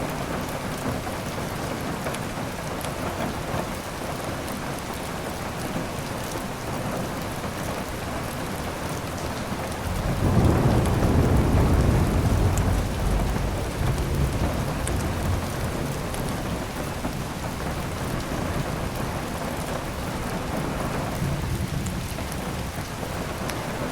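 Steady heavy rain, with a rumble of thunder that swells about ten seconds in and fades away over the next several seconds.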